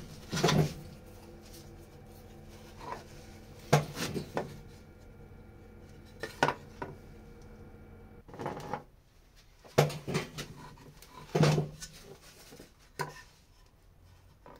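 Scattered sharp metallic clinks and knocks, about eight in all, from a small metal tin of wood finish and its lid being handled and opened on a workbench.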